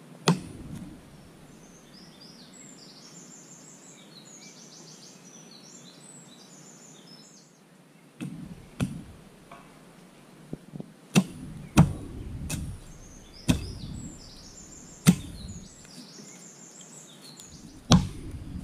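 Hatchet chopping into the wood of a tree stump: one sharp strike at the start, then, after a pause, a run of uneven chops from about eight seconds in, roughly one every second or so.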